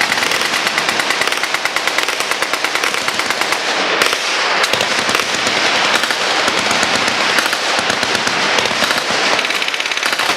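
Machine guns firing full-automatic: rapid, overlapping shots in a continuous stream with no pause.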